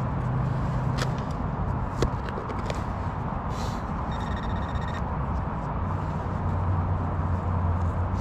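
Hand digger scraping and crunching into root-bound soil while a metal detecting target is dug out, with a few sharp scrapes in the first three seconds. A brief electronic metal-detector beep sounds about four seconds in, over a steady low hum.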